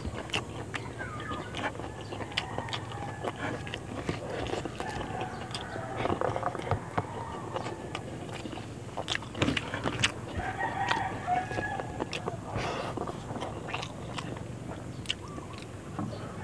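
A rooster crowing a few times in the background, with long drawn-out calls. Over it, close sharp clicks and smacks of eating by hand: chewing and lip smacks.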